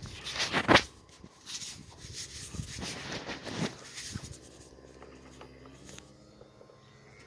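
Camera handling noise: a series of scuffs and bumps against the microphone as the camera is swung down and moved about. The loudest comes about a second in, and they die away after about four seconds.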